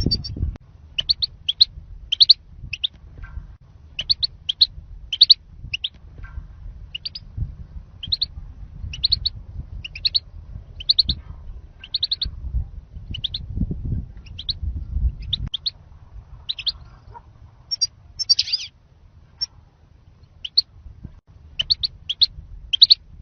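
European goldfinch calling: short, sharp, high chirps in quick clusters, about one to three a second, over a low background rumble. It is a lure call meant to draw goldfinches for trapping.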